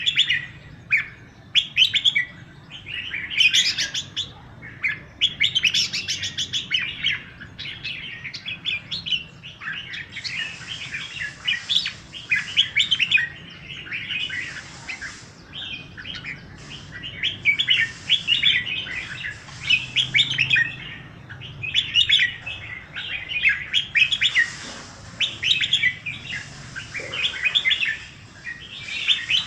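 Birds chirping and singing in a morning chorus: many quick, overlapping high chirps and trills that keep on without a pause.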